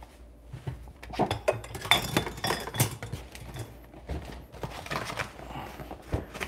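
A large cardboard box being handled and flipped over on a countertop: irregular knocks, bumps and scrapes of cardboard, busiest about two to three seconds in.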